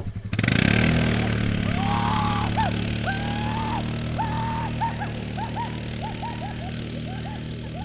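Four-wheeler (ATV) engine picks up sharply just after the start, then runs steadily and grows slowly fainter. Over it come a string of short, high rising-and-falling chirps or squeaks.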